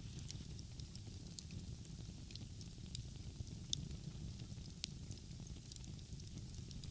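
Wood fire crackling, with irregular snaps and a few sharper pops, over a steady low rumble.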